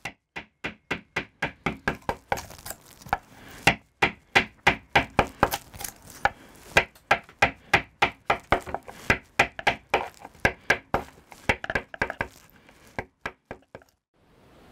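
Woodblock carver's chisel cutting into a printing block: a long run of sharp wooden knocks, about three or four a second, thinning out near the end.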